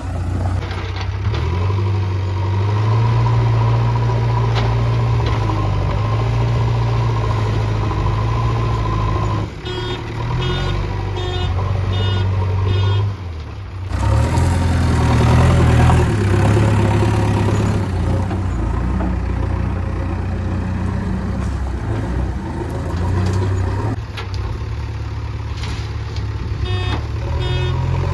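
JCB backhoe loader's diesel engine running steadily while digging and loading mud, growing louder and noisier about halfway through. Rapid electronic beeping sounds in short spells, typical of a reversing alarm.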